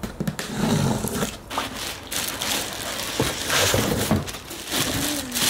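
Packaging rustling and crinkling, with irregular knocks, as a small kitchen appliance is unboxed and handled.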